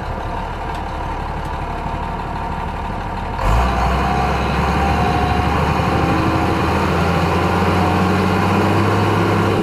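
Heavy vehicle engine sound running steadily with a low hum, getting louder about three and a half seconds in.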